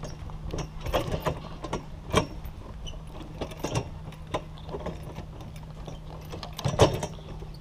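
Irregular clicks and clanks from a playground's pole-mounted stepping pods as a child steps from disc to disc across them, over a steady low hum. The loudest knock comes about seven seconds in.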